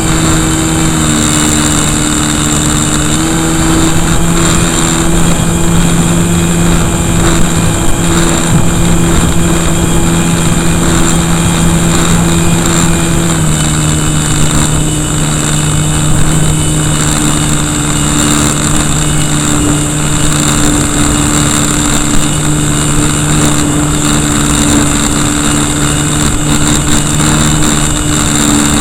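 Brushless electric motor and propeller of an RC Cessna running in flight, picked up right next to the motor: a steady hum that steps up slightly a few seconds in and drops a step about halfway through as the throttle changes, over wind rushing across the microphone.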